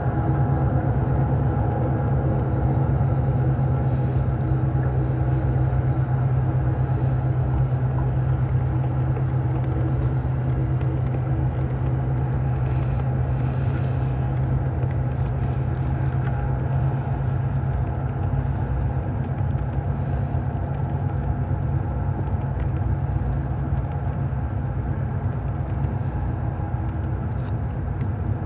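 Simulated diesel locomotive engine sound for an HO scale SD90/43MAC model: a steady low engine drone with a constant hum of fixed tones above it, holding level throughout.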